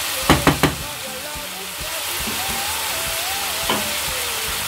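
Chicken, onion and carrot filling sizzling steadily in a frying pan as it cooks for the carrots to soften. Three quick knocks come a little after the start and one more about three and a half seconds in.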